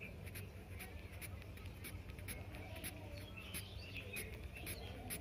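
Graphite pencil scratching across drawing paper in quick, short hatching strokes, about two a second, laying down a very dark shading tone, over a steady low hum.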